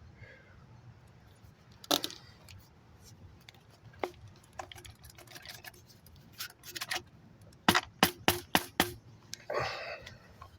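Scattered clicks and light knocks of small chainsaw parts and tools being handled during a fuel line replacement, with a quick run of about six sharp clicks about eight seconds in and a brief rustle just after.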